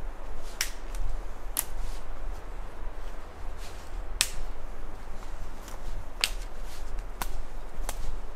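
Footsteps through a mossy forest floor, with six sharp snaps or clicks at irregular intervals, over a steady low rumble on the microphone.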